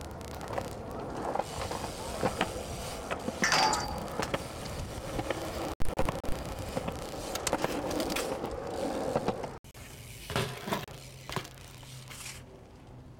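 BMX bike tyres rolling on concrete, with scattered clicks and knocks from the bikes as they ride and land. The sound breaks off abruptly twice and starts again.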